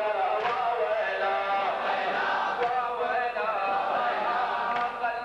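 Men chanting a Shia Muharram mourning lament (latmiya) in a steady melodic line, with strikes in unison about every two seconds from the crowd beating their chests.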